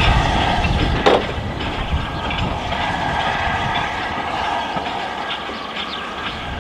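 Steam locomotive running slowly with a steady hiss over a low rumble of wheels on track, with one sharp clank about a second in; the hiss fades away near the end.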